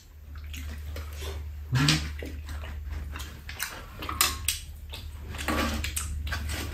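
Eating sounds: chewing and wet lip smacking of tteokbokki and sweet potato, with irregular clicks of chopsticks against the food container, over a steady low hum.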